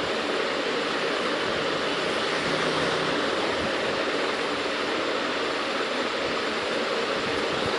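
Steady hiss-like background noise with no distinct events.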